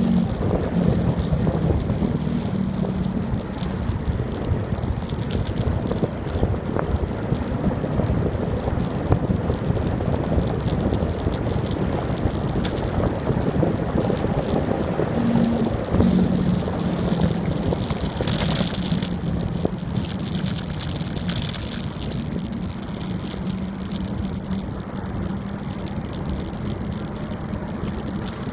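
Bicycle rolling along an asphalt road: a steady rush of wind and tyre noise, with a low hum that fades out a few seconds in and returns about halfway through.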